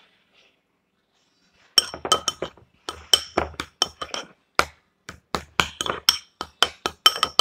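Metal spoon clinking against a small container as it stirs and scrapes a thick mashed-avocado mixture: quick, uneven strikes, several a second, each with a bright ring, starting about two seconds in.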